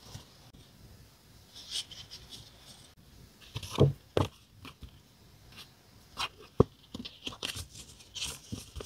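Hands handling paper and sticker sheets: scattered short rustles and crinkles with a few sharp taps, the loudest tap about two-thirds of the way through.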